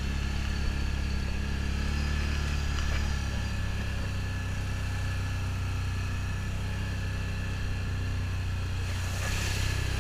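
Can-Am Outlander ATV engine running steadily at low trail speed, with a short rush of noise near the end.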